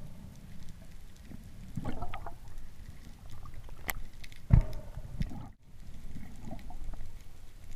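Underwater ambience heard through a diving camera's housing: a steady low rush of moving water, with a few dull thuds and one sharp click.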